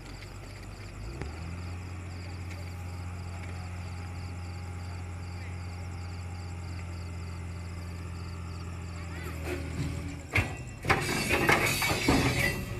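Heavy engine running with a steady low hum, with a faint high chirping repeating about three times a second; about ten seconds in, a sharp bang and then a loud clattering crash lasting a second or two.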